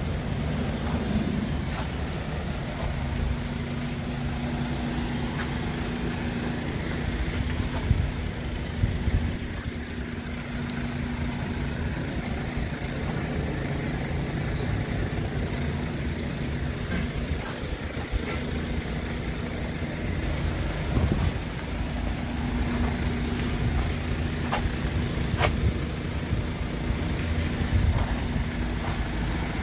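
Diesel truck engine idling with a steady low hum that fades briefly twice, over a low, uneven rumble and a few faint clicks.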